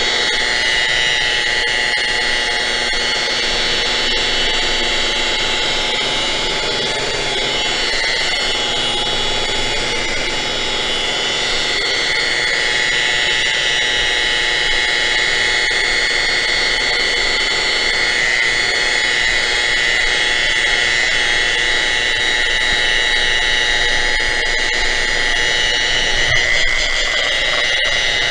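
DeWalt electric buffer running steadily with a high-pitched whine as its pad polishes an aluminum pontoon tube.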